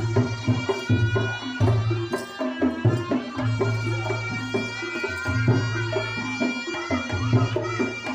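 Reog gamelan ensemble playing: dense kendang drum strokes under a held, reedy wind melody, with long low tones sounding again and again.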